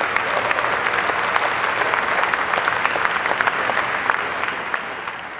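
Audience applauding, a dense patter of many hands clapping that holds steady, then fades near the end.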